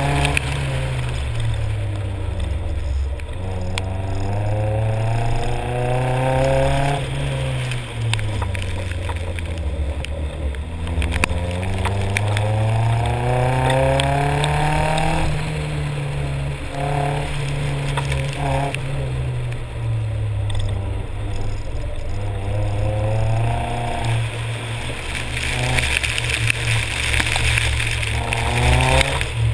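Nissan 240SX's KA24 four-cylinder engine heard from inside the car under hard driving, revs climbing for several seconds and then dropping, about four times, as the car accelerates and slows between corners. A steady hiss of tyres on wet pavement runs under it.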